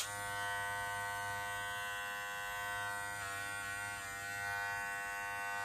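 Electric hair clipper switched on with a click, then running with a steady buzzing hum of its motor and blades; the tone shifts slightly about three seconds in.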